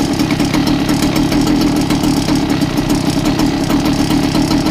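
Goped GTR scooter's two-stroke R460 engine idling steadily through a Jetpro expansion pipe; the new stainless exhaust joint at the manifold shows no leak.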